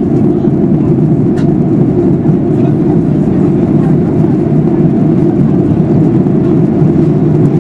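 Steady cabin noise of a Boeing 737-800 in flight, the even rush of its CFM56 engines and airflow, unchanging throughout, with one faint tick about a second and a half in.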